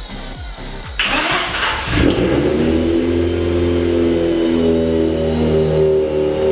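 Mazda RX-8's two-rotor Wankel rotary engine being started: a sudden burst of cranking noise about a second in, catching about a second later and settling into a steady idle.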